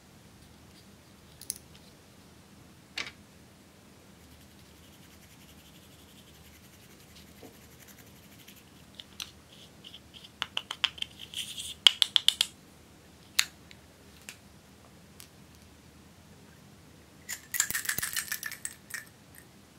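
Small cosmetic items clicking against a glass bowl. In the middle comes a fast run of scraping ticks as pressed makeup powder is scraped out with a plastic spatula, and near the end a short rattle of small plastic pearl beads poured into the glass bowl.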